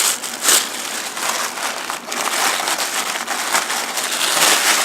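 Wrapping paper and packaging crinkling and rustling as a box's contents are unwrapped by hand, with irregular crackles throughout.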